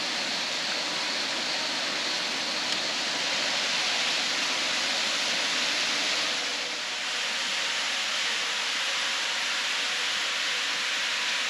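Small waterfall splashing into a creek pool: a steady rushing hiss of falling water.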